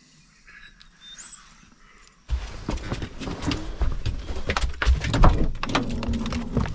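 A few faint high chirps, then a sudden run of clattering, knocks and jingling: a dog's collar tags and leash rattling as it moves about on the floor of a camper van, and the van's side door being opened.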